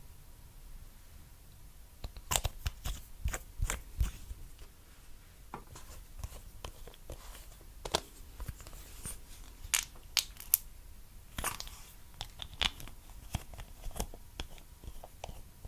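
Clear slime being squeezed and stretched by hand, giving irregular sharp pops and crackles that start about two seconds in and come in clusters.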